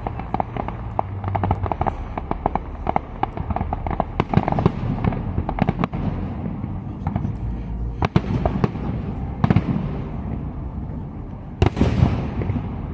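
Aerial fireworks display: a rapid run of sharp cracks and pops in the first half, then single louder shell bursts, the strongest near the end.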